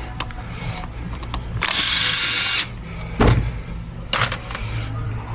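A power driver whirs for about a second, backing out a transmission bolt, followed by a heavy clunk and a sharp click of metal parts being handled.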